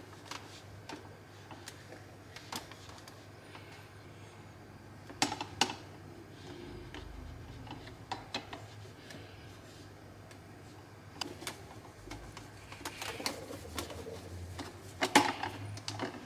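Scattered light clicks and knocks with soft rustling as a tissue wipes inside the brew area of a Smeg espresso machine, against its metal parts and drip tray, over a low steady hum; the loudest knock comes near the end.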